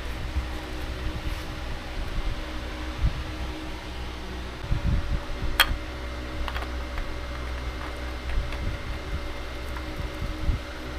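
Steady mechanical hum with a low rumble, and one sharp click about halfway through.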